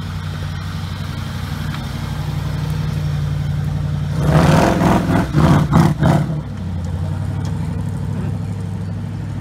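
Land Rover trials vehicle's engine running steadily as it crawls over rough woodland ground. About four seconds in it is revved hard in several surges for around two seconds as it drives close past, then it settles back to a steady run.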